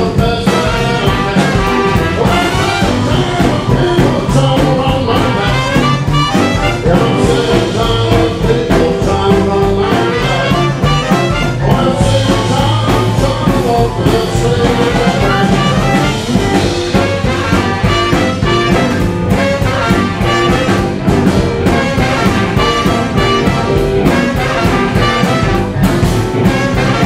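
Live jump-blues band playing an instrumental passage: tenor saxophone and trumpet over electric guitar, bass, keys and a steady drum beat.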